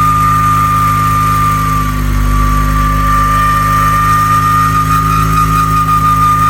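Honda S2000's F20C four-cylinder engine idling with a steady high-pitched whistle, a whirring from the accessory-belt pulleys. It is the sign of worn pulley bearings: the idler and tensioner pulley.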